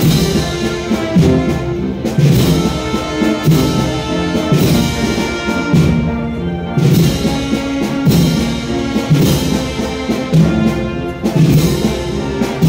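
Wind band playing a processional march: brass carrying the melody over drums and timpani.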